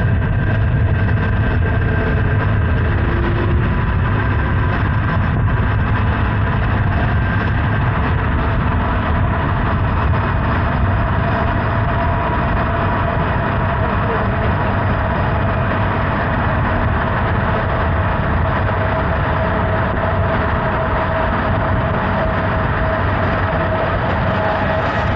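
Honda Hornet 900's inline-four engine running at a steady, even speed while riding, its note held constant under a continuous rush of road noise.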